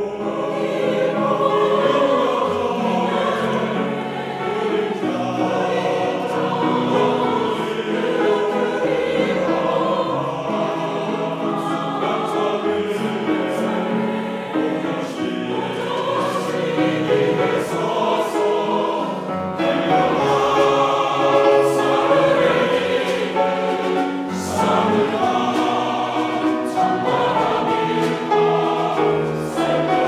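Mixed choir of women's and men's voices singing a Korean choral song in full harmony, coming in right at the start over a small ensemble of piano and strings.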